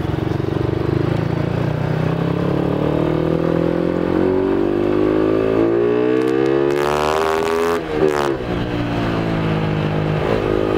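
A Yamaha Exciter 135 motorcycle's single-cylinder four-stroke engine, built up with a 62 mm BRT big-bore kit, pulls under throttle. Its pitch climbs steadily for several seconds, then drops sharply about eight seconds in and runs steady again.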